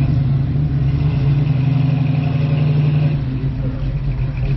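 Car engine running, a steady low rumble, loudest in the middle and easing a little after about three seconds.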